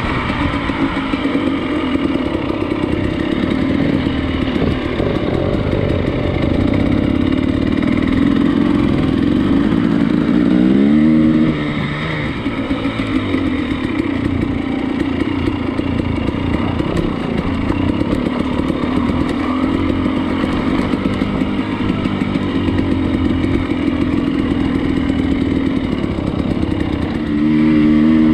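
Motorcycle engine running steadily under way. About ten seconds in its pitch rises as it revs, then drops suddenly as it changes gear, and near the end it gets louder again as it picks up speed.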